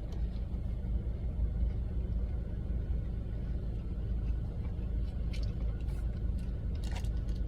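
Steady low rumble of a car's engine idling, heard from inside the cabin, with a few faint clicks in the second half.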